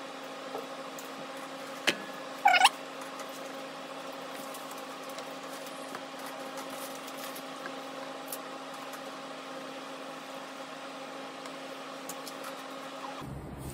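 Steady electrical or mechanical hum made of several constant tones, with a single sharp click about two seconds in and a brief rising squeak just after.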